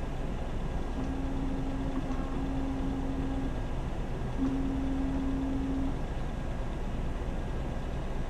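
OCT eye scanner's motor humming twice at one steady low pitch, first for about two and a half seconds, then after a short pause for about a second and a half, over a steady machine and room hum.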